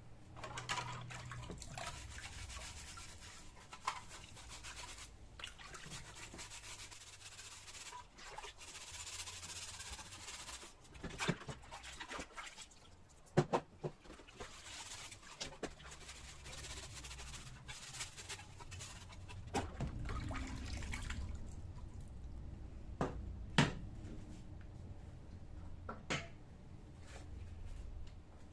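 Rubbing and scraping noises with scattered sharp clicks and knocks, over a low steady hum.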